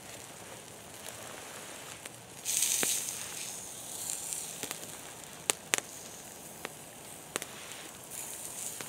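Wood campfire crackling, with a few sharp pops and a louder burst of hissing about two and a half seconds in.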